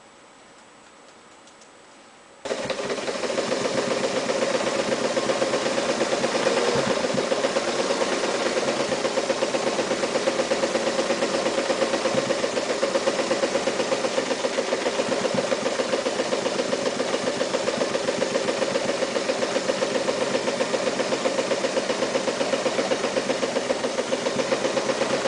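Mitsubishi MAZ4 electric sewing machine starting abruptly after about two seconds of quiet, then running steadily at speed: a steady motor hum with the fast, even clatter of the needle stitching.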